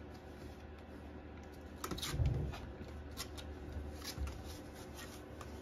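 Bull terrier puppies scrabbling over a plywood floor and against a wooden board: soft scratches and shuffles of small paws and claws, with one louder low sound about two seconds in.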